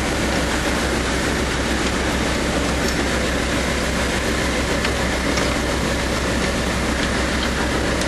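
An engine running steadily, a low even throb under constant mechanical noise, with a few faint clicks.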